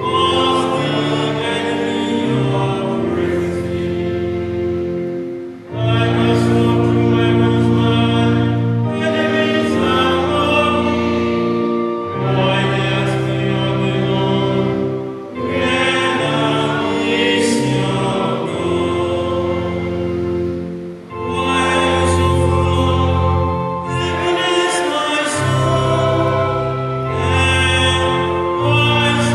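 Church choir singing with electronic keyboard accompaniment, in long phrases with a few short breaks between them.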